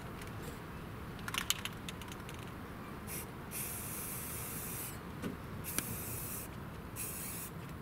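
Aerosol spray paint can spraying through a stencil in short bursts of hiss, three in the second half, with a few light clicks about a second and a half in.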